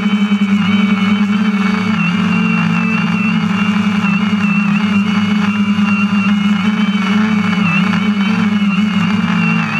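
DJI Phantom quadcopter hovering, its four motors and propellers giving a loud, steady hum with a high whine that wobbles slightly in pitch, heard up close from the camera mounted on the drone itself.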